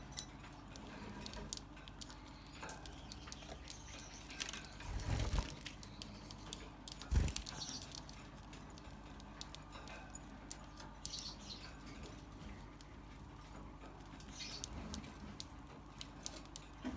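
Gouldian finches moving about their cage: scattered light clicks and taps of feet and beaks, with two louder bumps about 5 and 7 seconds in.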